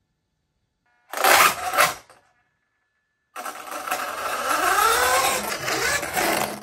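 Traxxas Slash RC truck's electric motor revving in two goes: a short burst about a second in, then a longer run of about three seconds whose whine rises and falls in pitch.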